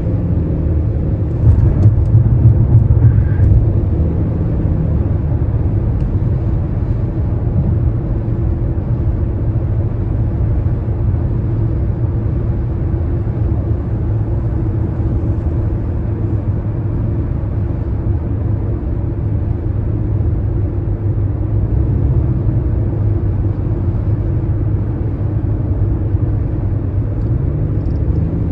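Car driving at highway speed, heard from inside the cabin: a steady low rumble of tyres and engine, briefly louder about two seconds in.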